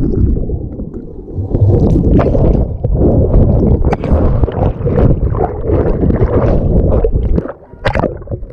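Pool water heard underwater through a waterproof action camera as it plunges in: a muffled rushing and bubbling, with scattered sharp knocks. It drops away briefly about seven and a half seconds in.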